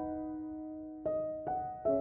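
Soft background piano music: single notes struck and left to ring and fade, with three new notes in the second half.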